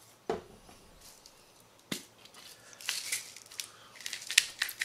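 Two light knocks, then from about three seconds in a hand spice mill grinding over a mug in quick repeated bursts.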